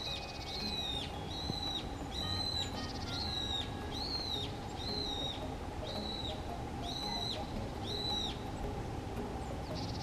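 Male Daurian redstart repeating its whistled 'hit' call, about two notes a second, stopping a little after eight seconds in, over steady low background noise.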